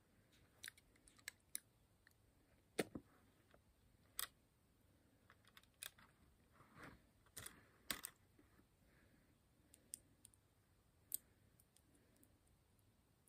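Small plastic toy-brick pieces of a model car clicking and snapping as they are handled and pressed back into place: quiet, irregular clicks, with a few sharper snaps and a brief rustle in the middle.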